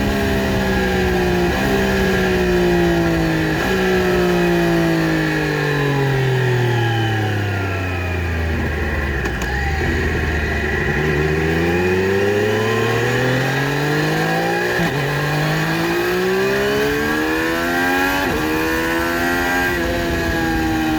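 2020 Triumph Street Triple RS, stock exhaust, its 765 cc three-cylinder engine running. The revs fall through two downshifts, each a short jump in pitch, down to low engine speed about halfway through. The engine then accelerates again, with two quick upshifts near the end.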